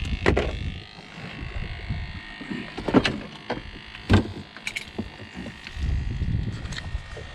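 Scattered sharp knocks and thumps on a boat deck, the loudest about three and four seconds in, as a freshly caught fish is handled for measuring, over a low rumble of wind and boat noise.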